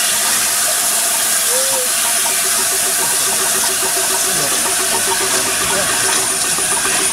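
LNER Class A4 steam locomotive giving off a loud, steady hiss of escaping steam as it moves slowly away.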